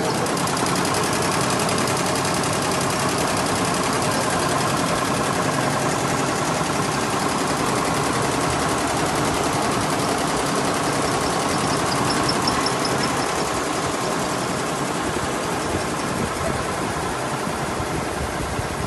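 Industrial embroidery and quilting machines running, a steady, rapid mechanical clatter of needles stitching, a little quieter near the end.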